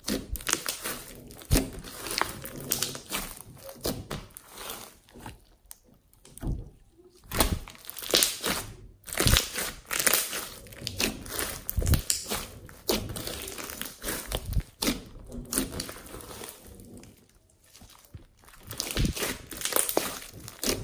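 A large mass of slime studded with foam beads being squeezed, pressed and stretched by hand, giving irregular crackles, clicks and pops of trapped air, with a couple of quieter pauses.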